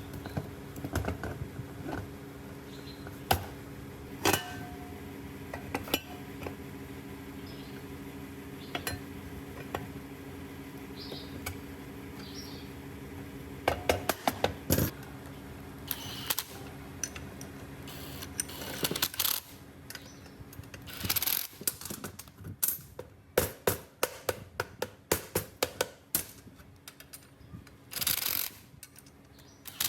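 Metal parts clinking and tapping against each other as they are handled. A steady low hum from a running motor lies under the first two-thirds and stops about two-thirds of the way through, after which the clinks come thicker and louder.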